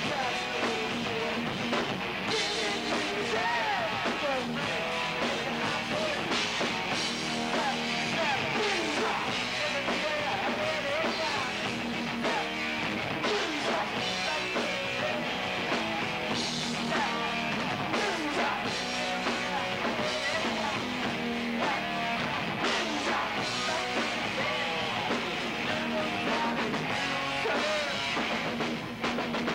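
Rock band playing live: a male singer's voice over electric guitar and drums with cymbals. The band's loudness dips slightly near the end.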